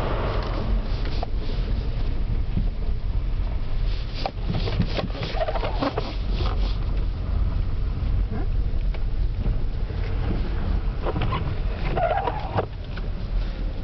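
Steady low rumble of a car driving along a snowy road, with two spells of sharp clicks and short squeaks, about four seconds in and again near the end.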